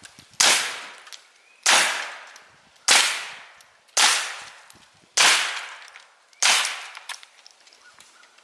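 Glock 44 .22 LR semi-automatic pistol fired six times in a slow, even string, about a shot a second, each crack fading away before the next.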